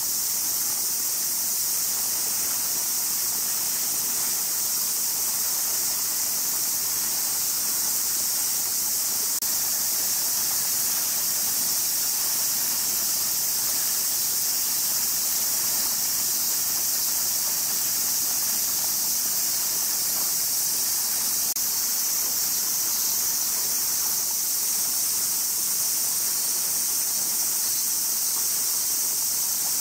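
Summer cicada chorus: a steady, high-pitched droning hiss that holds at an even level without a break.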